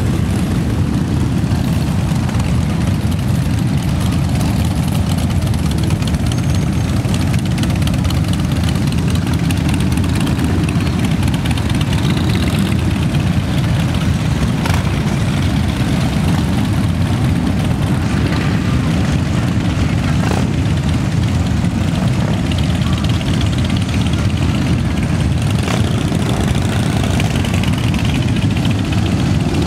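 Many motorcycles, mostly large cruisers, running at low speed in a slow procession: a dense, steady, low engine sound with no single bike standing out.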